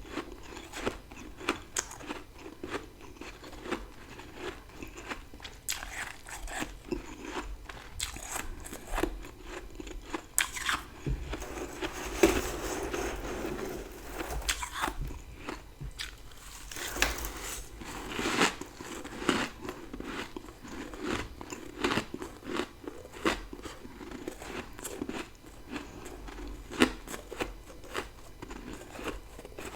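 Close-up crunching and chewing of big bites of dry humidifier freezer frost taken from a large spoon, a dense run of irregular crisp crunches with a longer grinding crunch about twelve seconds in.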